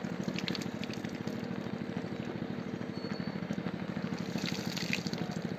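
Water poured from a small pot splashing onto a statue, with short spatters and a brighter splash about four and a half seconds in. A steady, low mechanical hum runs underneath.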